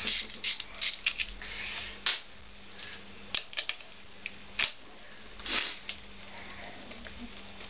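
Metal tools and loose bolts and nuts clinking and knocking while engine fasteners are undone: a run of irregular sharp clicks and knocks.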